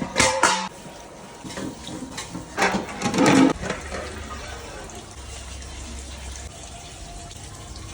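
Water running and splashing, loudest in two bursts: one at the start and one around three seconds in.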